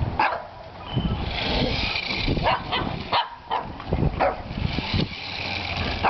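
Shih Tzu barking repeatedly at a remote control toy truck, over the steady high hum of the truck's small electric motor running.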